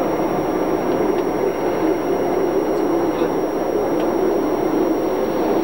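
Electric mountain railway train running, heard from inside the carriage: a steady rolling rumble with a low drone and no distinct wheel clicks.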